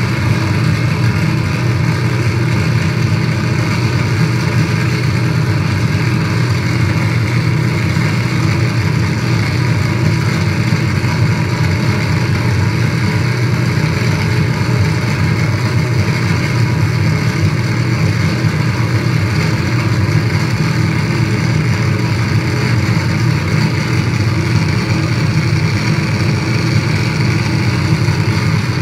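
A loud, unchanging wall of distorted static noise from effects pedals and electronic noise gear played live, with no rhythm or breaks.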